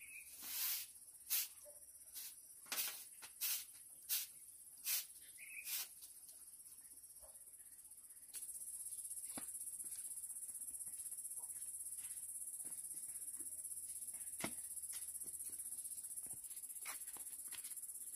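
Steady high-pitched insect trilling, growing louder about eight seconds in, with a string of short sharp scuffing noises, roughly one or two a second, over the first six seconds.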